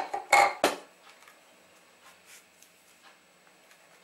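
A few sharp kitchen knocks, about three in quick succession within the first second, then near-quiet room tone with a few faint ticks. No blender is heard running.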